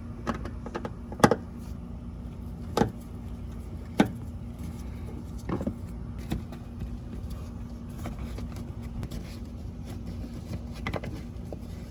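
Scattered sharp clicks and knocks from a screwdriver and the plastic wheel-well cover being worked open, over a steady low hum and rumble from the truck.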